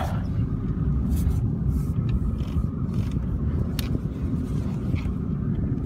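Inside the cabin of a 1997 Ford Crown Victoria rolling slowly: a steady low rumble from its V8 engine and the tyres on a snowy road, with a few faint clicks.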